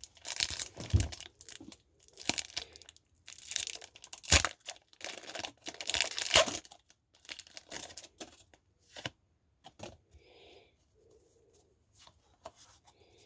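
Foil wrapper of a Pokémon TCG booster pack being torn open and crinkled: a run of short ripping bursts over the first seven seconds or so, then lighter, sparser rustling.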